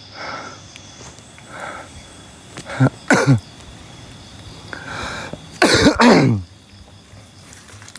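A man coughing and hawking to clear his throat: two loud, harsh outbursts falling in pitch, about 3 seconds and 6 seconds in, with softer breaths between.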